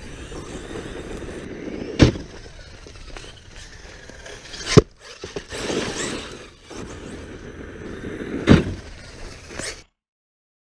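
Arrma Kraton V4 6s RC truck driving hard over dirt and gravel, its brushless motor whining up about halfway through. Three sharp impacts as the truck lands and tumbles. The sound cuts off suddenly about a second before the end.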